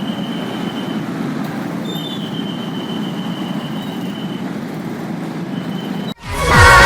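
KRL electric commuter train running over the rails with a steady low rumble and a high whine that comes and goes, then cut off about six seconds in by loud pop music.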